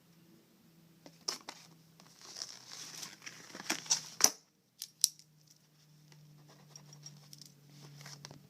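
Packaging from a beauty sample box being handled and opened: irregular crinkling and tearing with several sharp clicks, loudest about four seconds in, then quieter rustling, over a faint steady low hum.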